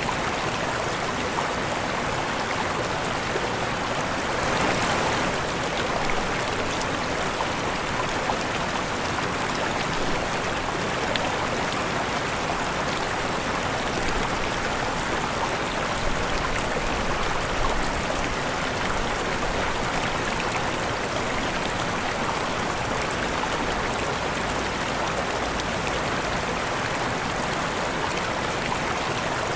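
Waterfall: falling water rushing steadily, with a slight swell about five seconds in.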